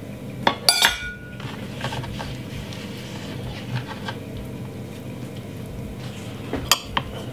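Kitchenware clinking: a metal spoon and glass bowls knocking together. There is a quick cluster of sharp clinks with a short ring about a second in, a few faint knocks, and another pair of clinks near the end.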